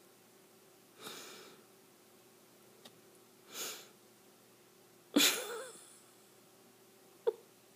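A person breathing out sharply through the nose in short puffs, four of them, the loudest about five seconds in, with two brief clicks between them.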